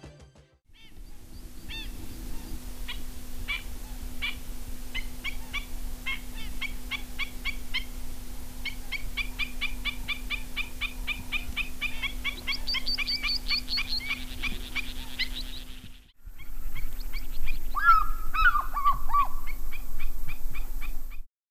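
Wild birds calling in the African bush: many short, rapid repeated chirps and trills, with a steady low hum beneath. After a cut near the end comes a louder stretch of calls, including a falling call, over a high steady hiss.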